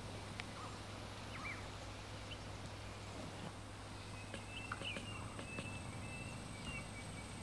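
Quiet woodland ambience: faint, brief bird chirps and calls come and go, with a few light clicks and taps over a low steady hum.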